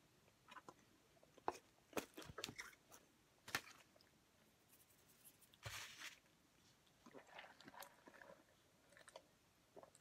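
Faint eating sounds at a table: scattered small clicks and crunches, mostly in the first half, and a short rustle about six seconds in.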